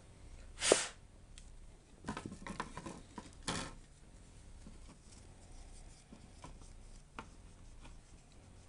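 Small handling noises while dried thermal paste is cleaned off a laptop's chips with rubbing alcohol: a sharp click about a second in, then a burst of scratching and rubbing, and a faint tick near the end.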